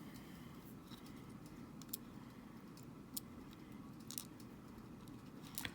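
A few faint, sharp clicks, about four in all, of a small screwdriver and tiny screws being handled against a Joy-Con's plastic parts, over a low steady hum.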